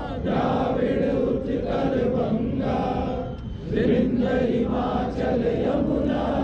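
A crowd of voices chanting together in unison, in phrases about a second long with a short break about halfway through.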